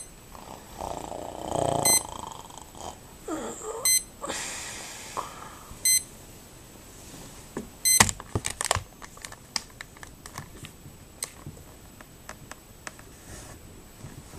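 An alarm beeps once every two seconds, five times, with muffled stirring sounds between the first beeps. The beeping stops about eight seconds in, and a run of clicks and rustles follows, fading out toward the end.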